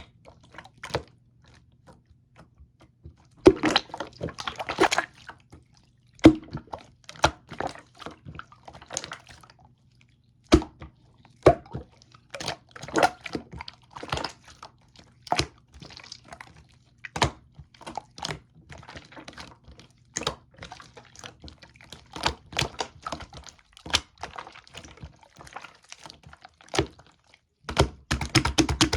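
Clear slime being squished and pressed by hand, giving sharp sticky pops and clicks at irregular intervals, with denser wet squelching about three to five seconds in and again near the end.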